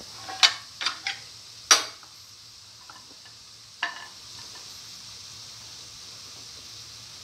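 Onion and ginger pieces sizzling in oil in a frying pan, with a few quick scrapes of a spatula against the pan in the first two seconds and one more about four seconds in.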